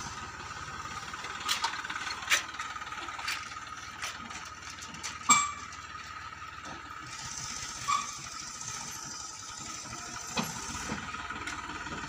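Eicher 333 tractor's diesel engine running at low speed while reversing a trailer loaded with gravel, with several sharp clanks, the loudest about five seconds in.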